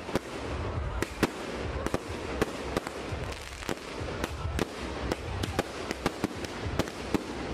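Ground fireworks (a spark fountain and cake boxes on pavement) going off: a steady rushing hiss of spraying sparks with irregular sharp cracks, one or two a second.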